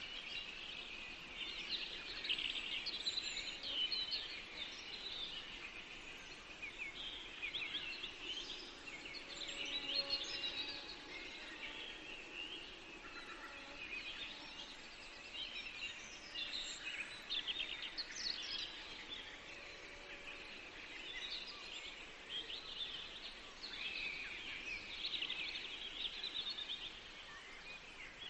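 Several songbirds singing together, a continuous chorus of quick chirps and trills with no pause.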